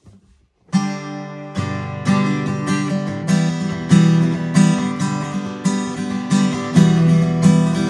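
Acoustic guitar strummed in a steady rhythm, starting about three-quarters of a second in after a brief quiet. The chords come roughly every half second, an unaccompanied instrumental intro before any singing.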